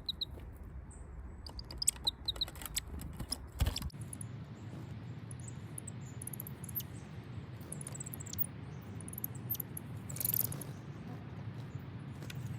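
Small songbirds chirping in short, high calls, with a run of sharp clicks and taps in the first few seconds, over a steady outdoor background hum.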